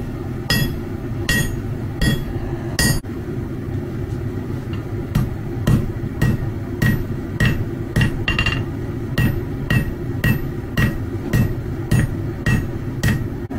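Blacksmith's hand hammer striking red-hot steel on an anvil, about two blows a second, each with a short metallic ring from the anvil. The blows stop for about two seconds early on, then resume as the punch's tapered point is drawn out.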